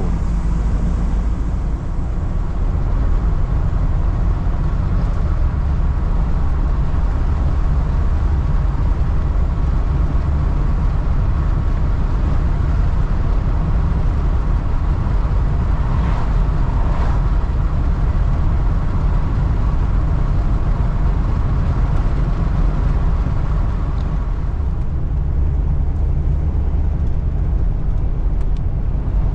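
Steady low rumble of engine and road noise inside a moving RV. The higher rushing sound thins out about five seconds before the end.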